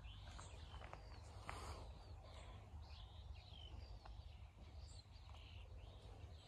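Near silence with faint birdsong: scattered short chirps and whistled notes from several birds, over a low steady rumble.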